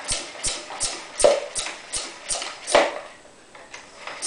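Floor pump worked in quick, strong strokes, each with a knock and a rush of air, about three a second; it stops for about a second and a half near the end, then starts again. Inflating a tubeless cyclocross tire with the valve core removed, to seat the bead.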